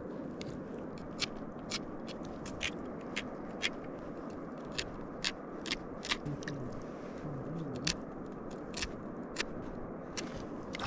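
A knife crunching and scraping through freshly cleaned trout: sharp, irregular clicks about one or two a second over a steady background rush.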